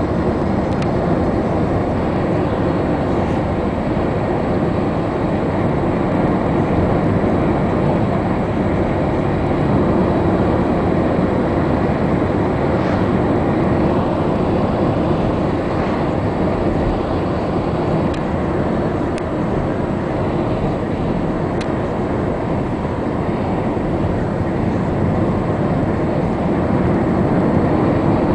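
Steady road noise of a moving vehicle heard from inside: a continuous low rumble of tyres and engine at cruising speed.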